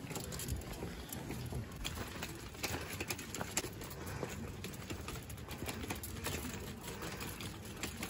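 Footsteps on a paved and cobbled stone path, heard as irregular light taps and scuffs over a steady outdoor hiss.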